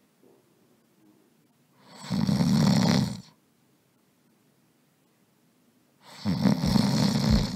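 A person snoring: one long snore about two seconds in, silence, then another starting near the end.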